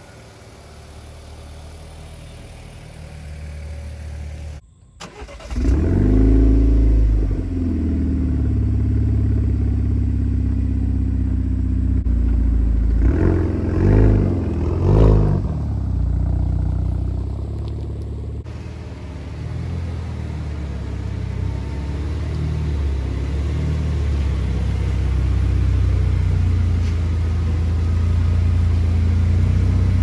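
A quieter engine idling as an SUV backs out, then after a cut a 2018 Chevrolet Camaro's engine starting with a surge about five seconds in, revved briefly twice, and running with a steady low rumble as the car is driven into the garage.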